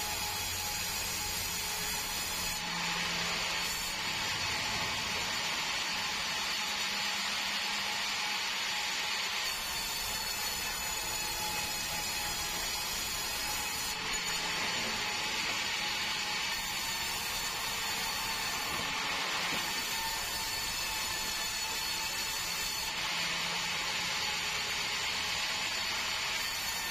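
Sawmill band saw running steadily and cutting lengthwise through a large log, slicing off planks. The cutting noise grows louder three times, for a few seconds each, as the blade passes through the wood.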